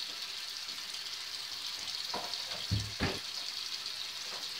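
Steady crackly hiss, with a couple of dull knocks a little past halfway.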